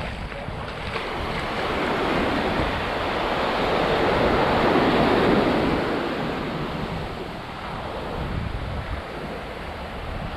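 Sea waves breaking on the shore: one wash of surf builds to its loudest about halfway through, then ebbs away.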